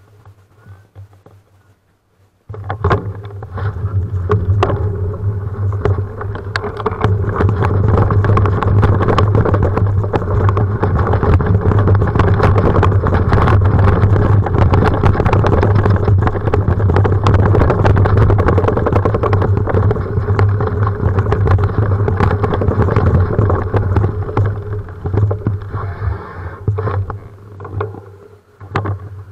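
Bicycle rolling fast over bumpy grass: a loud, steady rumble with many rattles and knocks from the bike and its handlebar camera mount. It starts about two seconds in and eases off near the end.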